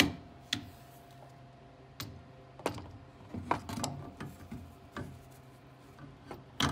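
Scattered knocks and clunks of a Warn winch being handled and slid into its mount, the loudest right at the start, over a low steady hum.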